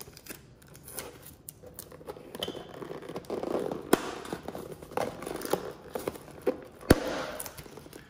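A clear adhesive safety seal being peeled off a cardboard box, with a tearing, crackling sound as the box is handled and opened. There are two sharp clicks, about halfway through and near the end.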